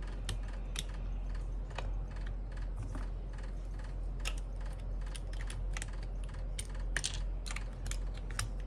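Irregular plastic clicks and clacks from a mechanical keyboard as keycaps on its stabilized keys are lifted off by hand, several a second, over a low steady hum.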